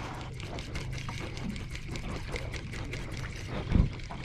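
Water lapping and splashing against the hull of a small aluminium boat, with a low steady hum underneath and one louder thump near the end.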